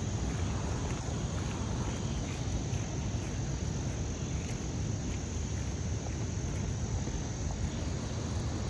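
Insects trilling steadily in a thin, high-pitched tone over a constant low rumble of outdoor noise.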